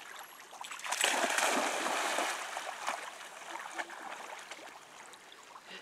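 Golden retriever puppy splashing as she wades out from the shallows and launches into swimming. The splashing is loudest about a second in for a second or two, then eases to quieter water sounds as she swims.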